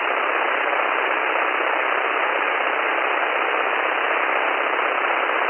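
Steady hiss of static on the light aircraft's radio/intercom audio, confined to a narrow, telephone-like band, with no engine note or voice heard through it.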